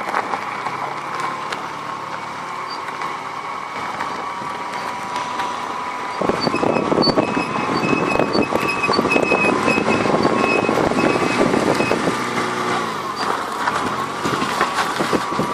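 Brake pad squealing against the disc: a steady high-pitched whistle over car rolling noise, which grows louder about six seconds in. The squeal comes from a ridge worn on the pad rubbing in a circular groove that sand or grit has worn into the brake disc.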